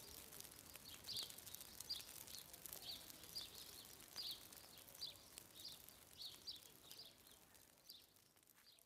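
Faint bird chirping outdoors: short high chirps repeating about every half second over a light background hiss, fading away near the end.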